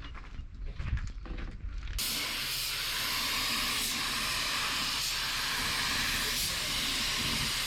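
Light knocks and clicks, then, about two seconds in, a steady hiss of compressed air from a paint spray gun starts abruptly and keeps going.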